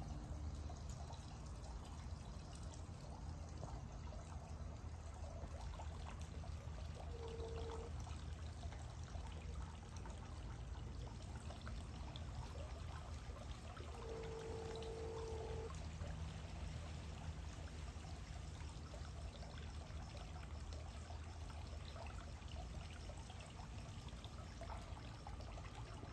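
Steady trickle of swimming-pool water running over a low, even hum. A short low tone sounds about 7 seconds in, and a longer one around 14 seconds.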